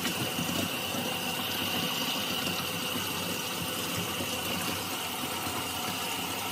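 Kitchen tap running steadily into a stainless steel sink as it fills, the stream splashing onto a fencing mask held under the water, with a steady high note in the rushing.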